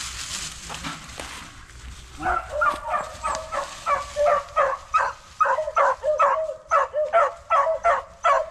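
Dry leaves rustling underfoot, then about two seconds in a beagle starts yipping in a quick, steady string of high yelps, about two a second.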